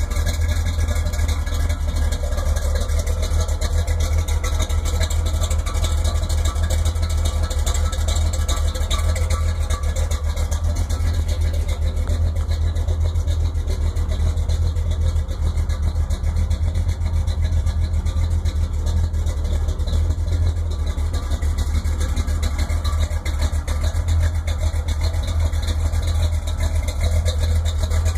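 1963 Chevrolet C10 pickup's engine idling steadily, a deep, even rumble that holds the same speed throughout.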